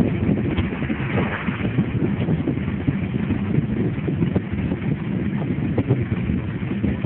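Wind buffeting the microphone and road rumble from a bicycle riding fast on asphalt: a steady, gusty rushing noise. An oncoming car passes about a second in.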